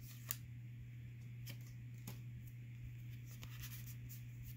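Faint handling of Pokémon trading cards: a few soft ticks and slides as the cards of a freshly opened booster pack are moved through the hands, over a steady low hum.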